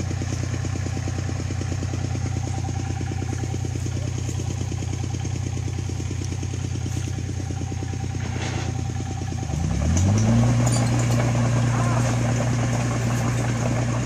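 Diesel engine idling steadily, then revved up about ten seconds in and held at the higher speed.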